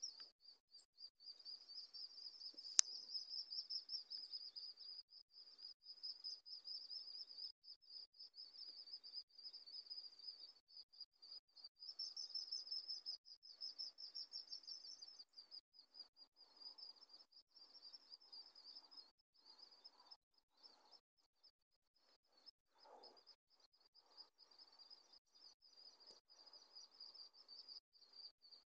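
A steady, high-pitched insect trill that pulses rapidly, with one sharp click about three seconds in.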